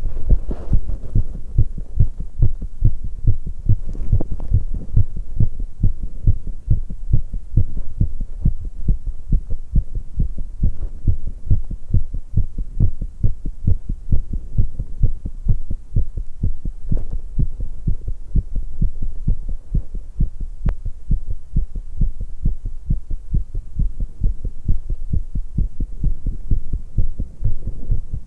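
A woman's heart pounding fast after exercise: a rapid, even run of low thumps.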